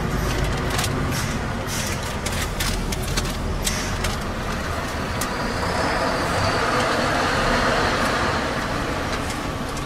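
Lorry running at low speed, heard from inside the cab, with scattered clicks and knocks in the first few seconds. The sound swells a little in the second half.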